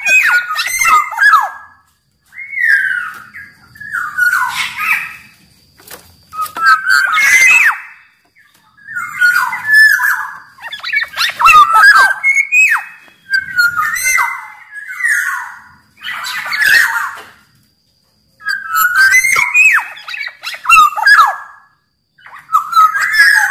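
Black-naped oriole (kepodang) singing a string of short phrases, about one every two to three seconds with brief pauses between them. Each phrase mixes fluty, gliding whistles with harsher, rasping notes.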